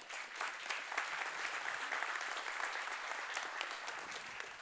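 Conference audience applauding steadily, dense clapping that fades out right at the end.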